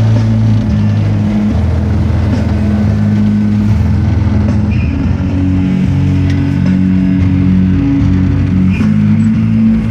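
Filipino pop (OPM) song playing on the car radio, a bass line moving in held notes under it, with the vehicle's engine and road noise beneath.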